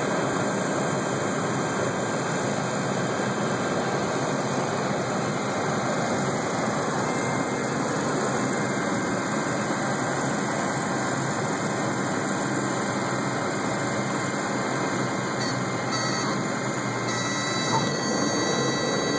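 Cabin noise of a light single-engine propeller airplane during landing: a steady mix of engine and airflow noise with no change in level.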